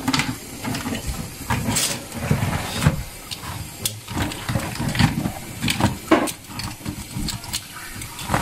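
Crabs being scrubbed with a brush to clean off mud: irregular scraping and knocking of the shells over a steady hiss.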